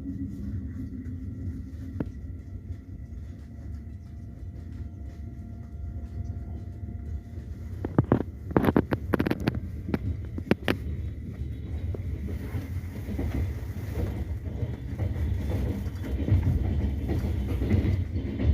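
Train running on the rails with a steady low rumble, and a quick run of sharp clacks about eight to eleven seconds in.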